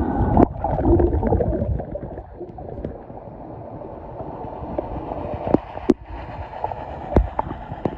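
Muffled underwater water noise picked up by a phone held below the surface: sloshing and gurgling, heaviest in the first two seconds, with a few sharp clicks later on.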